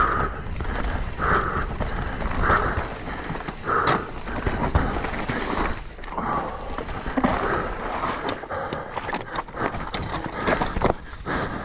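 Mountain bike rolling over a rough trail: constant tyre rumble with rattles and knocks from the bike, and the rider breathing hard in regular puffs about every second and a half.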